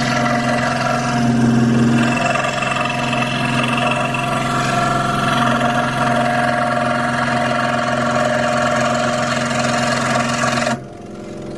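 Hegner scroll saw running, a steady mechanical hum with a stack of even tones, which stops abruptly near the end.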